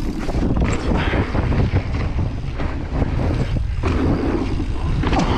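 Wind buffeting the microphone of a bike-mounted camera as a mountain bike rolls fast downhill, with tyres rumbling over a dirt trail and then over wooden boardwalk planks, and the bike rattling.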